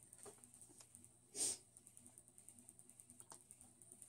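Quiet handling of a paper receipt: faint light ticks, and one short soft rustle about a second and a half in.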